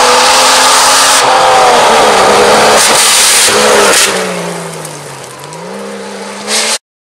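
Off-road rally cars driving hard on loose gravel: engines running at high revs over a loud hiss of tyres and gravel, changing abruptly at edits. After about four seconds one engine drops in pitch, then climbs again as it accelerates away, and the sound cuts off suddenly near the end.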